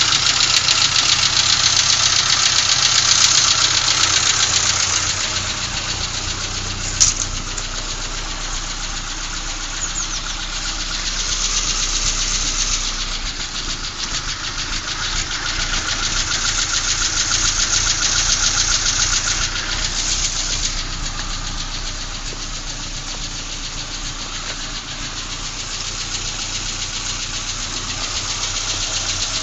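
Renault Clio II 1.2-litre 8-valve engine running with a fast, even tappety ticking, echoing in a confined space. The loudness swells and eases slowly, and there is one sharp click about seven seconds in.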